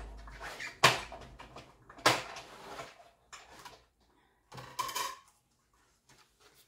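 A few sharp clacks and knocks of hard craft tools and plates being handled and set down, with brief scraping between them, dying away in the last second or so.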